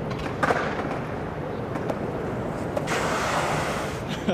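Wind on the microphone over the steady hum of road traffic, with a sharp click about half a second in and a short hissing rush about three seconds in.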